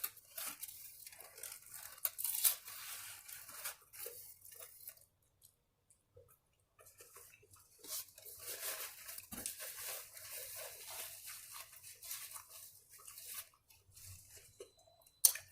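A person chewing and crunching a taco close to the microphone, in two stretches of soft, irregular crackling with a short quiet pause between them, and a sharp click near the end.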